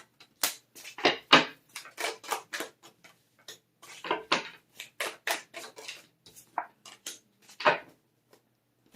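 Tarot cards being handled and laid out on a table: a string of irregular short snaps and taps, with brief pauses between them.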